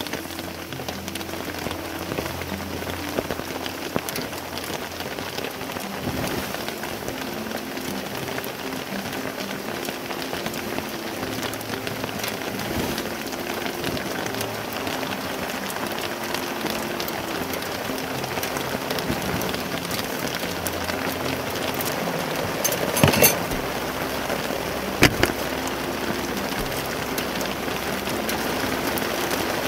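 Steady rain falling, a dense patter of drops on the ground and gear. About two-thirds of the way through come a few sharp, louder knocks.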